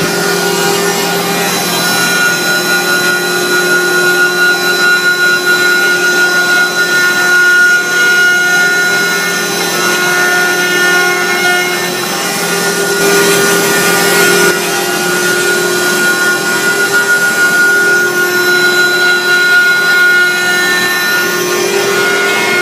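OMNI 12S multi-spindle CNC router-turner carving wood on its rotary axis: the router spindle whines at a steady pitch while the bit cuts and rasps the turning wood.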